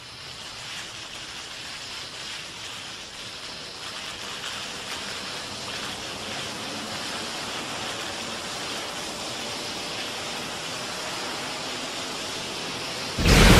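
A steady rushing hiss that slowly grows louder, then jumps abruptly to a much louder rush of noise about 13 seconds in.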